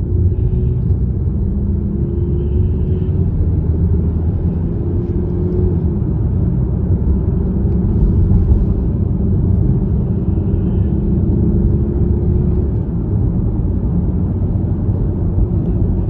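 Steady low road and engine rumble of a car driving, heard from inside its cabin, with a faint steady hum over it.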